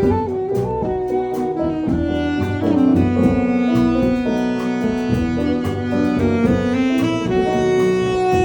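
Instrumental jam-session music: several instruments playing together, with a melody of held notes over a pulsing bass line.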